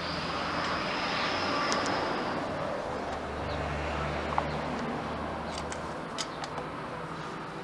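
A steady low motor-vehicle drone that swells between about three and a half and six seconds in. A few light clicks of metal and plastic parts are handled over it.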